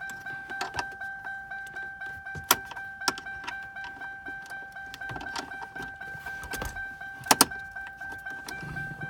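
Lincoln Town Car warning chime dinging rapidly and over and over, a steady two-note ding repeating several times a second. A few sharp clicks sound over it, the loudest a quick pair about seven seconds in.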